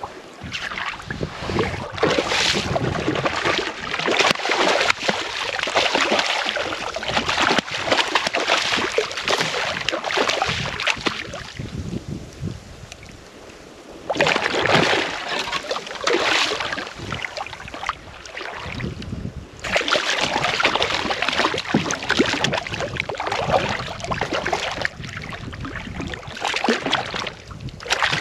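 Wind rushing on the microphone in gusts, with water splashing at the side of a kayak where a hooked fish is being fought; the noise drops away for a couple of seconds near the middle.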